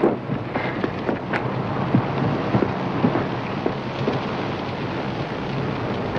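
Steady rumble of engines, with wind noise and a few light crackles.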